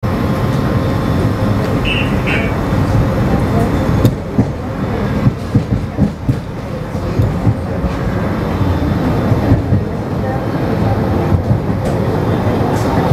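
Interior of a Budd-built Miami Metrorail rapid-transit car under way: a steady rumble of wheels and running gear, with a string of knocks from the track starting about four seconds in.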